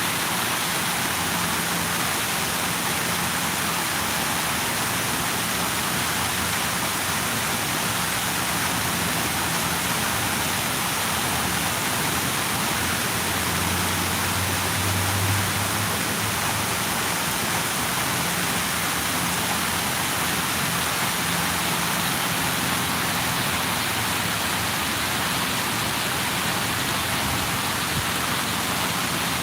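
Falling water making a steady, even rushing hiss, with a faint low hum swelling briefly a little past the middle.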